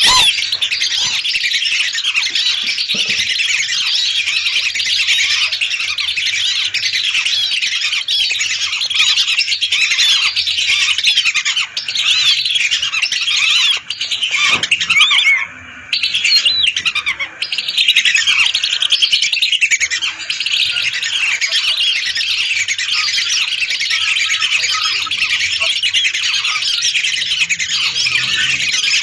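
A large flock of whistling ducks calling together: a dense, unbroken chorus of many short, overlapping high whistles. It breaks off briefly about halfway through.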